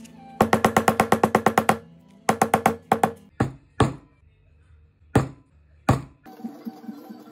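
A quick run of hammer strikes, about eight a second, then a short cluster and a few spaced single blows of a mallet driving a metal stitching chisel through leather to punch stitch holes. Background music comes in near the end.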